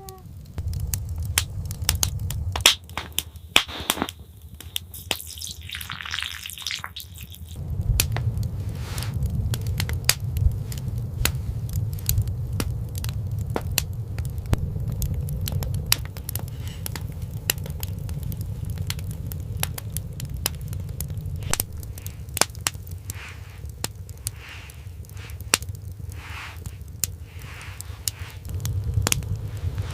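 Irregular crackling and popping over a low steady rumble; the rumble drops away for a few seconds early on and then returns.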